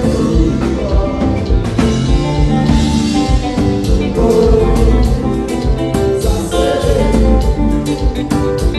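Konpa band playing at a sound check: guitar and drum kit over a steady beat, with some singing.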